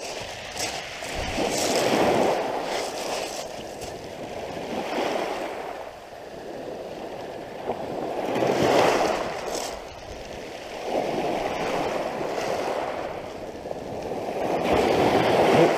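Small sea waves breaking and washing up the shore close by, each swell of noise rising and falling every three to four seconds.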